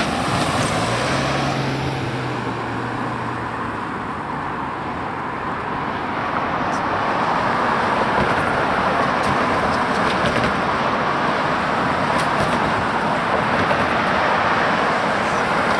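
Approaching freight train led by EMD SD70M-2 and SD70M diesel locomotives: a steady rumbling rush that grows louder about halfway through as the train nears, mixed with road traffic noise. A low engine hum is heard in the first few seconds.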